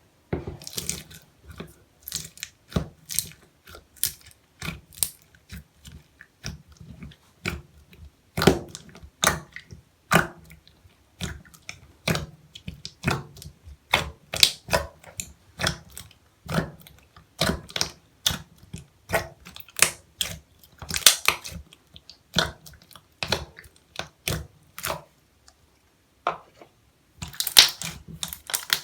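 Slime being squished and pressed by hand, making an irregular run of sharp wet clicks and pops, one or two a second, with a short pause near the end before a louder cluster of pops.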